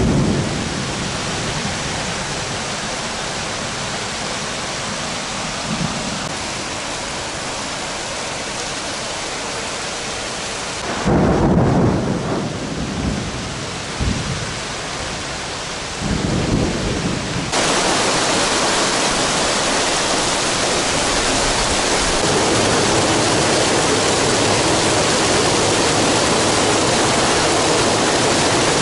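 Thunderstorm: steady heavy rain with several low rolls of thunder, the loudest about eleven seconds in. About two-thirds of the way through, the rain becomes louder and denser as a heavy downpour on the wet street.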